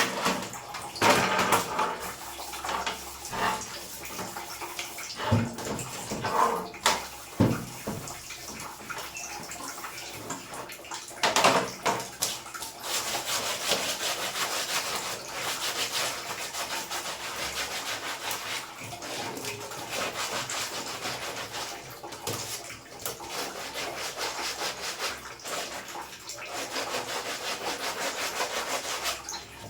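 Water running and splashing as air-conditioner parts are rinsed. The first part has irregular knocks and clatter from handled parts; a little before halfway a steady spray takes over.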